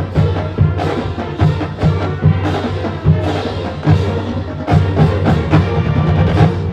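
Marching band playing, sustained band chords with frequent drum and percussion strikes, stopping at the end and ringing away.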